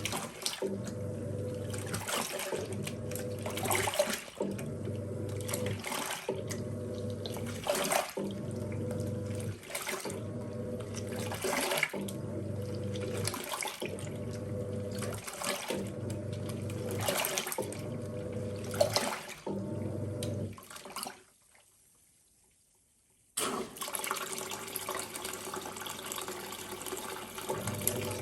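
Costway 4.5 kg top-load washing machine agitating a load in water. The motor hums in strokes of about a second, stopping and reversing between them, with water sloshing over it. Near three-quarters of the way through it stops for about two seconds, then water and motor start up again.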